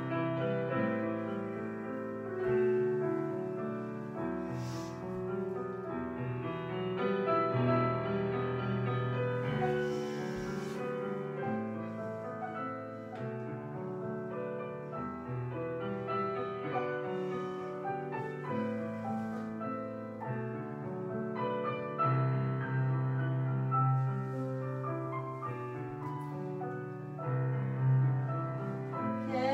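Solo piano music in a slow classical style, held chords and melody notes changing every second or two.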